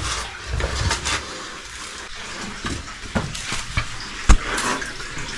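Scraping, shuffling and knocking of a caver's body and gear against rock while squeezing through a tight passage, with scattered bumps, the sharpest about four seconds in.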